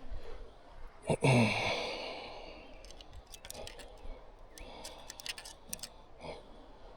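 A person sighs loudly about a second in, a breathy exhale falling in pitch. Scattered small clicks and taps follow.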